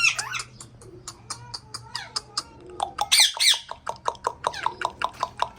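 Pet parrot calling: a string of chirps and whistled pitch glides, two loud screechy calls about three seconds in, then rapid chirps at about four or five a second.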